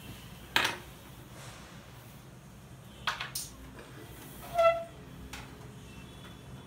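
Carrom striker shots on a wooden carrom board: a sharp click about half a second in, then a quick pair of clicks about three seconds in. The loudest sound, about four and a half seconds in, is a brief pitched note, a third of a second long.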